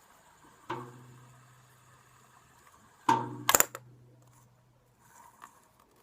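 A fidget spinner is flicked into a spin twice, about a second in and again around three seconds in. Each flick is a click followed by a steady low whir that slowly fades.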